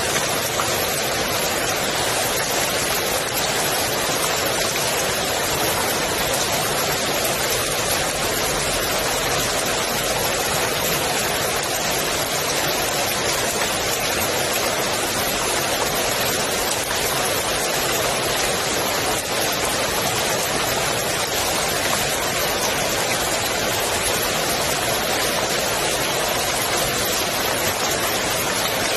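Rain falling steadily on a swimming pool, a dense, even patter of drops on water with no let-up.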